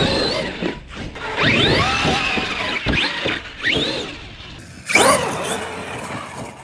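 Brushless electric motor of a Traxxas X-Maxx 8S RC monster truck whining up and down in pitch as the throttle is punched again and again. It gets suddenly louder about five seconds in.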